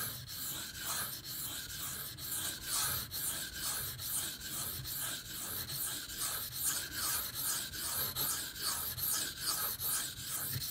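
Steel knife blade (a Bark River Bravo EDC in 154CM) drawn back and forth in long sweeping strokes across a coarse Beston 500-grit whetstone, a rhythmic gritty scraping at about two strokes a second. The edge is being ground down to remove nicks and chips and to reset its bevel.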